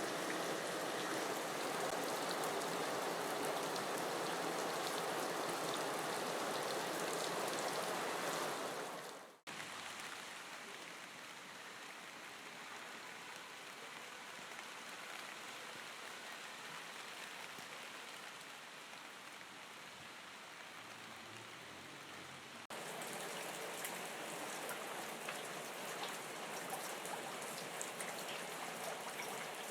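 Steady rain, a dense even hiss of falling drops. About nine seconds in it fades briefly and comes back quieter and thinner; near 23 seconds it steps up again, with single drops ticking through the hiss.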